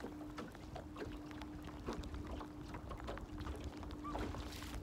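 Wind on the microphone aboard a small fishing boat on choppy water, a low rumble with scattered light ticks and a faint steady hum underneath.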